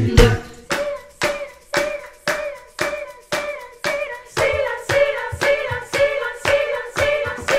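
Background song: hand claps on a steady beat, about two a second, under a sung melody without words.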